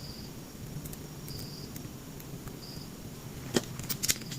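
Faint high-pitched chirps, each about a third of a second long, repeating roughly every second and a half over a low steady hum, with a few sharp clicks near the end.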